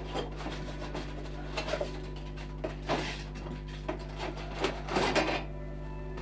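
Hand carving tools scraping and cutting wood in a dozen or so irregular short strokes, taking bulk off a wooden dog-head carving, over a steady low electrical hum.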